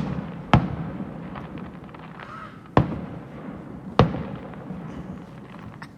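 Fireworks shells bursting: four loud bangs, two close together at the start, then one a little before the middle and one past it, each fading away. Fainter crackling and pops fill the gaps.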